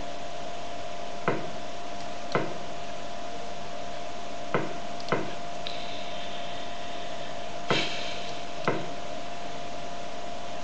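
Six sharp clicks, spaced irregularly a second or two apart, from a computer being used to play chess online. Under them runs a steady high whine with hiss.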